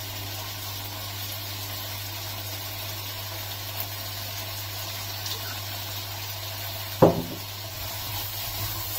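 Chilli chicken and paneer sizzling gently in two woks over a low steady hum, with one sharp knock about seven seconds in and light stirring clicks near the end.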